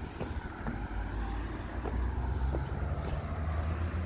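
Low rumble of road traffic, with wind buffeting the microphone and a few faint light clicks.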